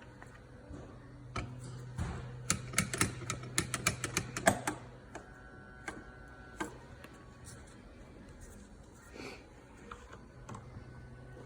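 Irregular sharp metallic clicks and clatter of hand tools on a small pump head as it is clamped and its compression cap tightened. The clicks come thick for a few seconds, then thin out to a few single ticks over a low steady hum.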